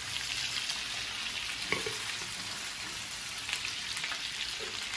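Meat sizzling in a hot frying pan while a spatula stirs it, with a steady hiss of frying fat and a couple of sharp clicks of the spatula against the pan.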